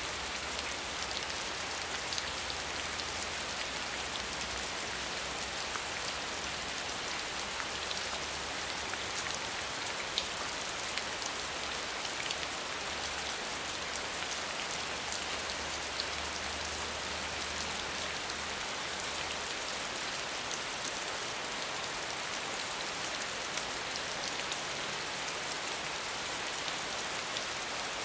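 Steady rain falling on a hard surface, a dense patter of drops with individual drop ticks.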